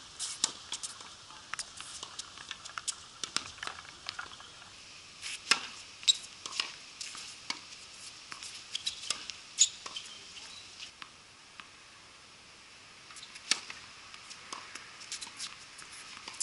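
Tennis play on an outdoor hard court: several sharp pops of racket strings hitting the ball and the ball bouncing, among many small scattered ticks and scuffs.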